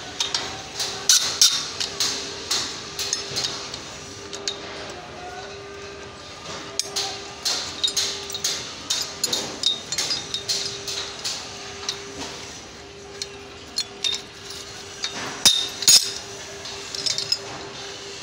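Steel scaffolding couplers and a spanner clinking and knocking against a steel tube and against each other while the couplers' bolts are worked. Irregular sharp metallic clinks come several a second, with a cluster of louder ones about a second in and near the end, over a faint steady hum.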